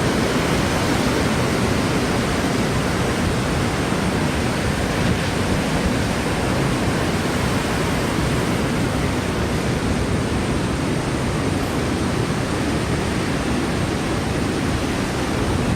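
Typhoon-force wind blowing over the microphone together with heavy surf, a steady rushing noise with no let-up.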